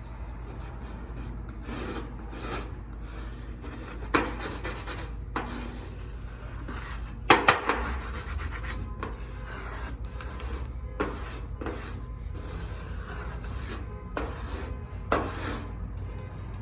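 Repeated irregular scraping and rubbing strokes across a 1993 Nissan 240SX's painted quarter panel, with a few sharper, louder scrapes. The paint stripper has not softened the original OEM e-coat, which stays on.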